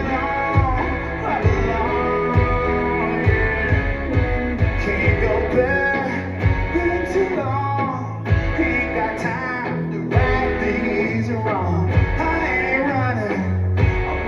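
A live rock band playing: guitar, bass and drums with a steady beat, and singing in places.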